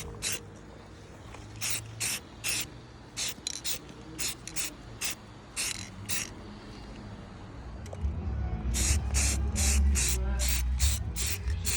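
Aerosol can of high-heat flat black paint spraying in many short hissing bursts, a second or less apart. A low rumble comes in about eight seconds in.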